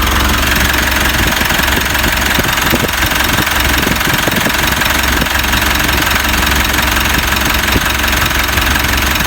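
Mitsubishi Montero's 4N15 2.4-litre four-cylinder turbodiesel idling steadily, with light knocks in its running. No belt squeal is left: the alternator pulley's worn bearing has been replaced and the pulley now spins true.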